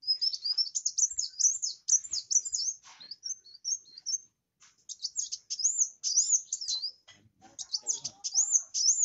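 Kolibri wulung sunbird singing: fast, high-pitched twittering and swooping chirps in rapid bursts, broken by two brief pauses.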